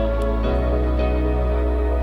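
Background music: a soft, sustained new-age piece with held chords and a deep bass note, the chord shifting about half a second in.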